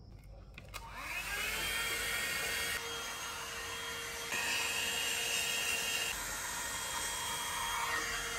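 Hair dryer switched on about a second in, its motor whine rising as it spins up, then running with a steady blowing rush that shifts in tone and loudness a few times while hair is blow-dried with a brush.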